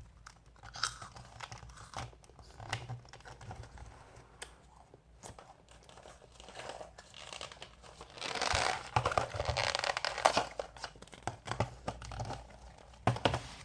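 Plastic snack packaging crinkling and rustling in the hands, with scattered crackles and clicks. It turns into a denser burst of crinkling about eight to ten seconds in.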